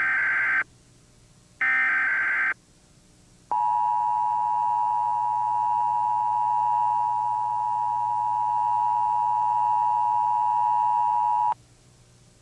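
Emergency Alert System broadcast test signals: the end of one SAME digital header burst and then another about a second long, harsh buzzy data bursts. After a short gap comes the steady two-note EAS attention tone, held for about eight seconds and cutting off suddenly.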